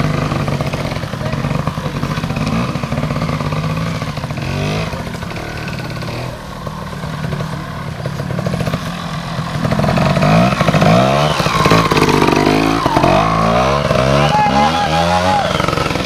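Trials motorcycle engines idling and being revved in short throttle blips, the pitch jumping up and falling back. The blips come quicker and more often in the second half.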